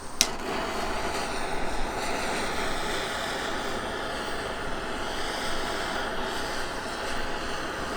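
Handheld gas blowtorch burning with a steady hiss, with a sharp click just after the start.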